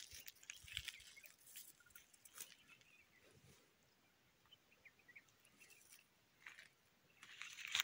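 Near silence: faint ambient noise with scattered small clicks and rustles, a little louder near the end.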